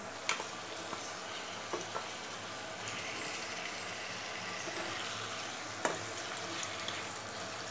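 Marinated chicken pieces sizzling steadily in hot sesame oil with shallots in a nonstick pan as they are stirred, with a few light knocks, the sharpest about six seconds in.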